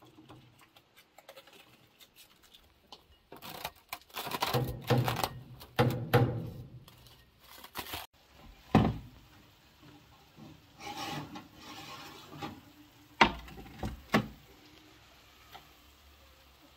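Plastic cling film pulled off its roll, torn and pressed over a glass bowl, crinkling and rustling in bursts. Later come a few sharp knocks.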